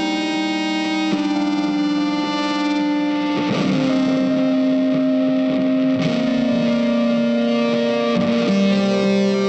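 Background music: an electric guitar with distortion holding long notes, moving to a new note every second or two.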